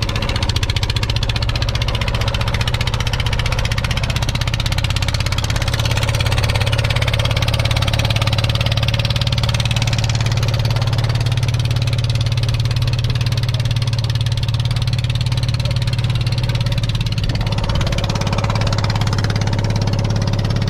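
Wooden fishing boat's engine running steadily as the boat travels across open water, a constant low drone with a faint hiss of water and air over it.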